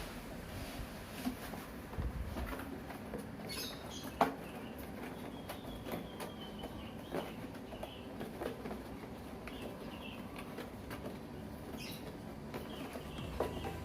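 Packaging of a wireless microphone set being handled and opened: scattered rustling and light scratching with small clicks and taps, one sharper click about four seconds in.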